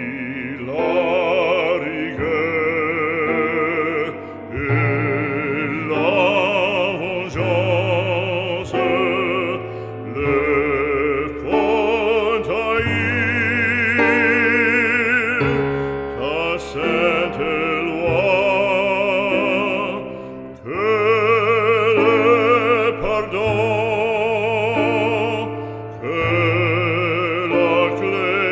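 Background music: an operatic voice singing long held notes with a wide vibrato over a low, sustained accompaniment.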